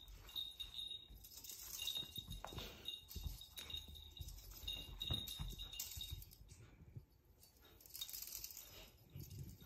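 A cat's wand toy jingling faintly with a high metallic tinkle that comes in short bursts as a tabby cat bats and pounces on it, over soft thuds of paws on a rug.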